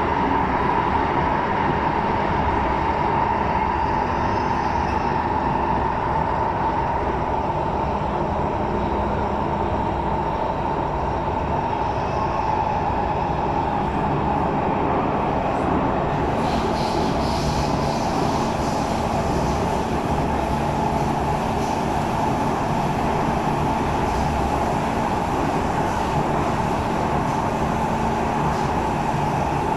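SMRT MRT train heard from inside the carriage while running between stations: a steady rumble with a constant tone underneath, and more hiss coming in from about halfway through.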